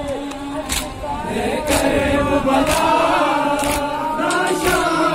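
A crowd of men chanting a nauha lament in unison, with sharp chest-beating slaps (matam) about once a second keeping the beat.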